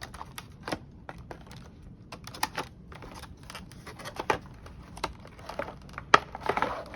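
Irregular hard clicks and short rustles from a Klein circuit breaker finder kit being handled, with one sharper click about six seconds in.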